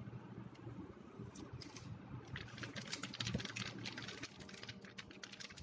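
Thin protective plastic wrap from a new phone crinkling and crackling as it is peeled and handled by hand. The crackling is a dense run of small crackles that grows busier about two seconds in.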